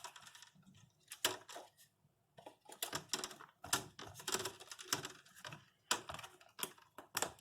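Plastic screen bezel of a Dell Inspiron 15 laptop being pressed back onto the lid, its retaining clips snapping into place: a run of sharp clicks at irregular spacing, with a short pause a little over a second in.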